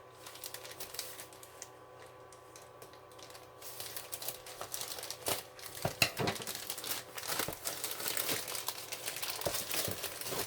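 Mailing package wrapping crinkling and tearing as it is opened by hand: quieter for the first few seconds, then steady crackling with one sharp snap about six seconds in.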